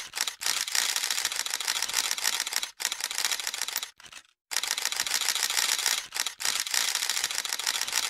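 Many camera shutters from a crowd of photographers firing in rapid, overlapping bursts, a dense clatter of clicks with a short pause about four seconds in.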